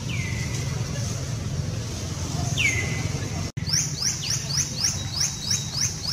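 High-pitched animal chirps over a steady low rumble. First come two single calls that drop in pitch and then hold briefly. After a sudden break in the sound, a quick run of short downward chirps follows, about three a second.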